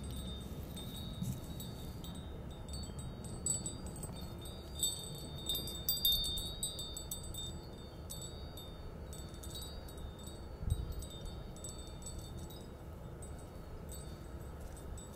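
Wind chime tinkling irregularly in the breeze with thin, high ringing notes, busiest in the middle, over a low rumble of wind.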